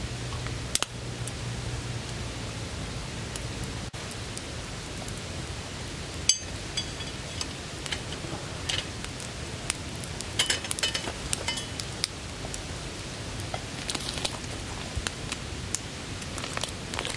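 Wood fire crackling, with scattered sharp pops over a steady hiss; the loudest pop comes about six seconds in and a quick run of pops follows a few seconds later.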